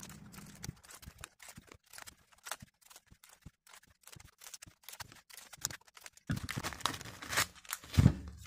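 Scissors snipping open clear plastic trading-card packs: a run of short sharp clicks and plastic crinkles, busier and louder near the end with one strong snap.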